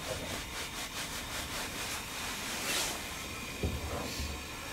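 Metal cookware scraping and rubbing on the grate of a two-burner camp stove: a quick run of rasping strokes over the first two seconds, then a thump about three and a half seconds in. A steady faint gas hiss runs underneath.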